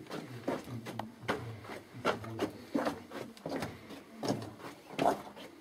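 Footsteps on a mine tunnel's rock floor, an uneven step about every half second to a second, with scuffing in between.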